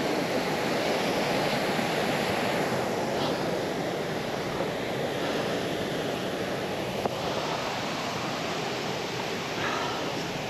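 Steady rushing of a fast-flowing moorland stream, an even hiss of water that holds throughout.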